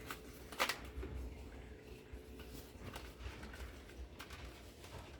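Quiet room with faint handling noise: a light click about half a second in and a few softer ones, over a steady low hum.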